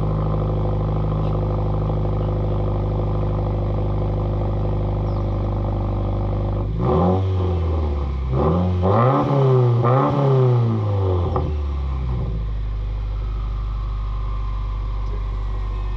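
Subaru WRX's turbocharged flat-four with its mufflers deleted, heard at the exhaust tips: a steady idle, then a series of short revs blipped up and down for about five seconds near the middle, then back to idle.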